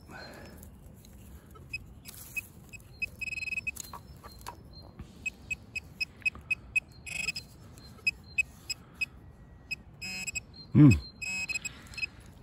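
Metal detector beeping: short, high-pitched beeps at one pitch, irregular, some held longer or running together, as a buried target is pinpointed. There is a low rustle of digging beneath, and one brief, loud, low sound near the end.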